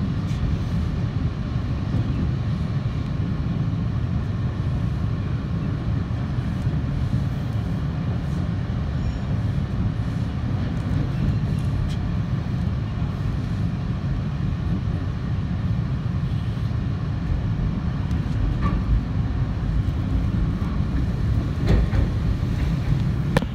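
Toronto TTC Line 2 subway train running through a tunnel, heard from inside the lead car: a steady low rumble of wheels on rail, with a few sharp clicks near the end.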